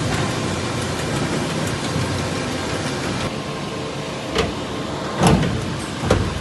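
Okuma MILLAC 800VH vertical machining center running, with a steady hiss of machine noise that eases a little about three seconds in. Three clunks follow, about a second apart, from the machine's mechanism moving.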